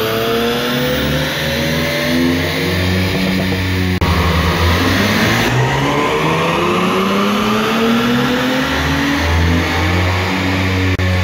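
Nissan 350Z's 3.5-litre V6 with a full Borla exhaust, run up on a chassis dyno: the exhaust note climbs steadily in pitch as the revs rise. It breaks off suddenly about four seconds in, and another rising run follows.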